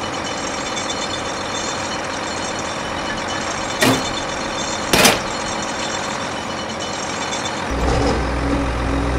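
Mini tractor's small motor running steadily. Two sharp knocks come about four and five seconds in, and a deeper hum joins near the end.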